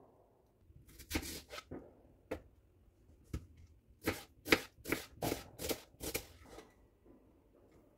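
Kitchen knife chopping on a plastic cutting board: a few separate cuts, then a quick run of about six cuts near the middle.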